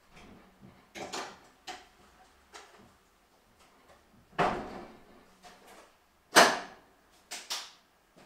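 Irregular knocks and clatters of things being handled and moved about in a garage, with short quiet gaps between. The loudest two come about four and six seconds in.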